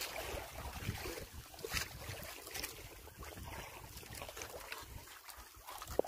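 Wind buffeting the microphone over water lapping against a wooden outrigger boat's hull, with a few short knocks and a sharp click near the end.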